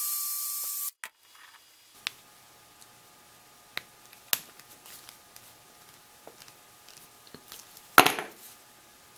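Cordless drill with a small bit whining as it bores through PVC pipe, stopping about a second in. Then a few light clicks of needle-nose pliers handling a short piece of copper wire, and one sharp knock about eight seconds in, the loudest sound.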